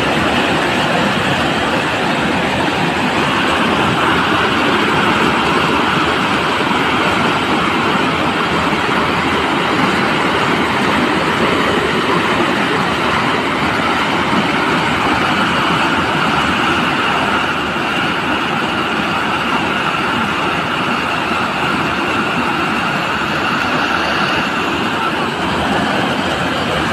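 Muddy floodwater rushing in spate through a city storm-water channel after heavy rain: a steady, loud, continuous rush of turbulent water.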